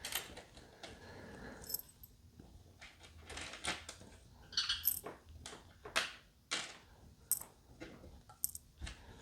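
Scattered light clicks and clinks of small metal guitar parts and tools being handled on a workbench, with a few short high chirps between them.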